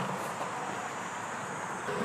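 Steady outdoor background noise, an even hiss with a faint high steady tone that stops just before the end.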